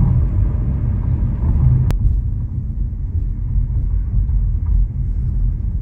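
Car cruising at steady highway speed, heard from inside the cabin: a steady low rumble of road and engine noise.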